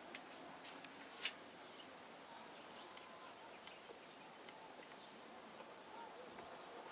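Faint open-air ambience with scattered short high chirps, and one sharp click about a second in.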